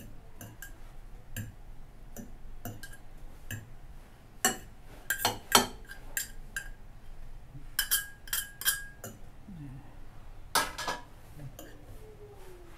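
Spoon clinking and scraping against a dish while rice vermicelli is tossed with fried garlic. Light scattered taps, with louder bunches of clinks about four and a half, eight and eleven seconds in.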